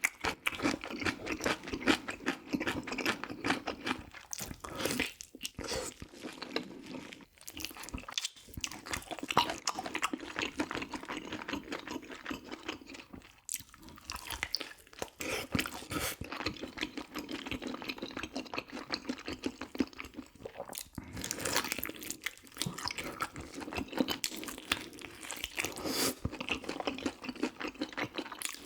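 A person chewing and biting into food, with crunching and wet mouth sounds, close to the microphone: eating soy-braised pigs' feet (jokbal) and kimchi.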